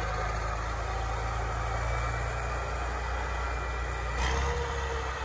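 Engine of a tracked armoured vehicle running steadily at low revs as it crawls over sand, with a brief louder noise about four seconds in.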